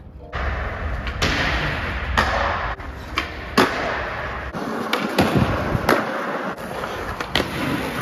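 Skateboard wheels rolling on a smooth concrete skatepark floor, broken by a series of sharp pops and clacks as the board is snapped and lands, and a grind along the edge of a box near the end.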